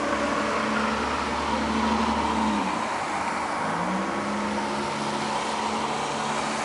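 A motor vehicle's engine running over a steady wash of traffic-like noise; its pitch drops about two and a half seconds in, then climbs again a second later.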